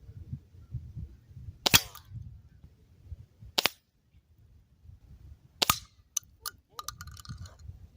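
Three sharp shots from a .177 Weihrauch HW30S spring-piston air rifle, about two seconds apart, the first with a brief ringing twang. A few light clicks follow near the end.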